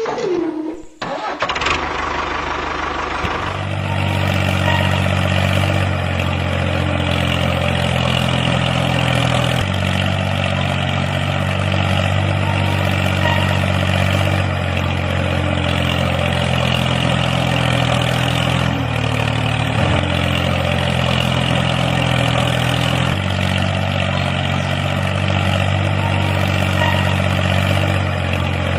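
Tractor engine starting about a second in, then running steadily.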